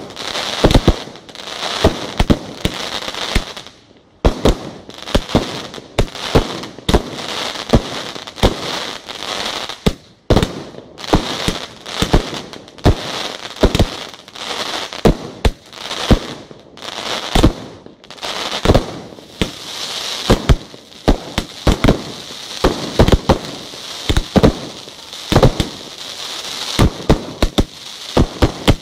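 Aerial fireworks display: a rapid, unbroken string of sharp bangs from bursting shells, with crackling and hissing from the burning stars between the bangs.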